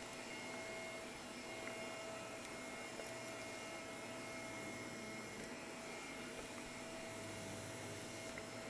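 Shark vacuum cleaner running steadily: an even motor noise with a constant whine.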